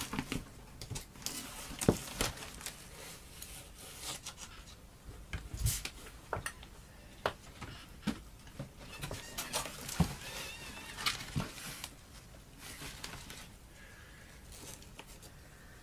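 A cardboard shipping box being opened and unpacked by hand: tape cut, flaps pulled back and fur packed inside shifted about. It gives scattered rustles, scrapes and knocks that are busiest at first and thin out toward the end.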